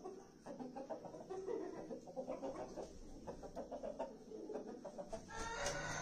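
Chicken clucking in short, separate notes, with a louder call near the end.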